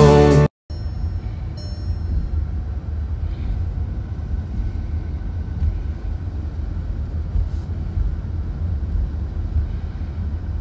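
Steady low rumble of a Volkswagen car driving, heard from inside the cabin, with two short high beeps near the start.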